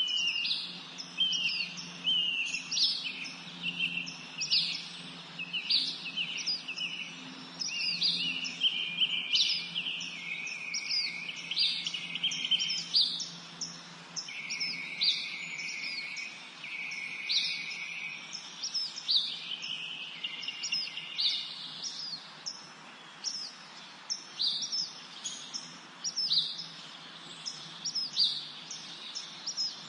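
Several songbirds singing together: a steady stream of quick, high chirps that sweep downward, mixed with longer trills that fade out past the middle. A faint low hum sits under the first half.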